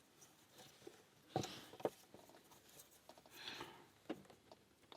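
Faint handling sounds of a pen and a thin sheet of metal: two light clicks, then a short scratch of the pen marking out pick outlines on the metal.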